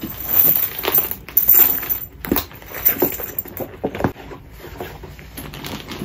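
Handbags being opened and handled while a perfume bottle is put away: rustling with irregular knocks and clinks, busiest in the first few seconds.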